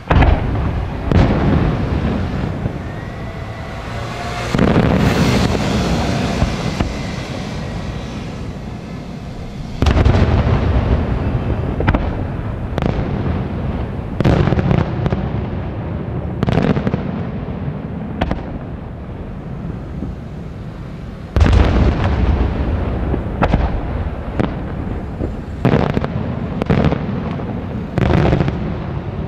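Aerial firework shells bursting one after another: about a dozen loud booms spaced one to three seconds apart, each trailing off in a long rumbling echo, with heavier clusters a few seconds in, around ten seconds in and about two-thirds of the way through.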